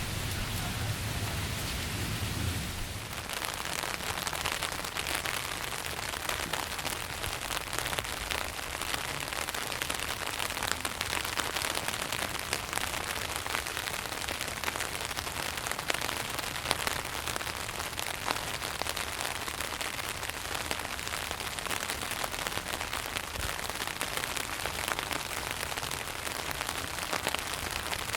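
Rain pattering on tent fabric: a dense, steady patter of drops. A low rumble underneath fades out about three seconds in.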